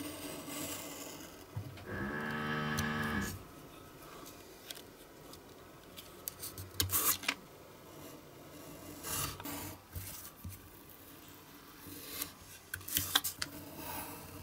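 Utility knife blade drawn along a steel ruler, scoring and cutting glossy cardboard: several short scratchy strokes, the loudest about seven and thirteen seconds in. About two seconds in there is also a steady humming tone lasting a little over a second.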